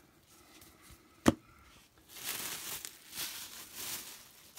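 A single sharp tap a little over a second in, then a couple of seconds of rustling and crinkling of packing material, bubble wrap and paper, being handled.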